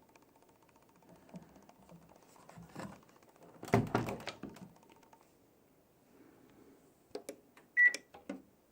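Panasonic NA-168VX4WGN washing machine being started: a clatter of knocks about four seconds in, then several sharp clicks and one short high beep near the end.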